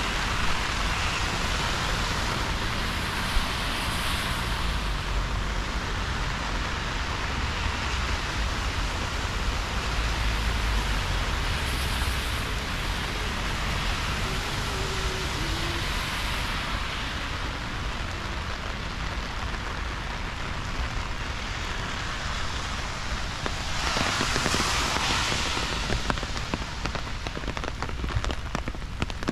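Steady rain falling, an even hiss of drops on wet ground and surfaces, swelling louder for a couple of seconds near the end.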